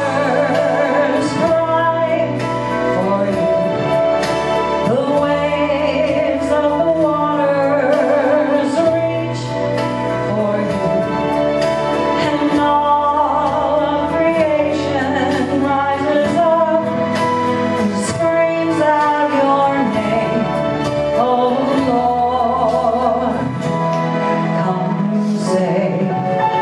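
A woman singing a slow song with vibrato into a handheld microphone, over sustained instrumental accompaniment whose chords change every few seconds.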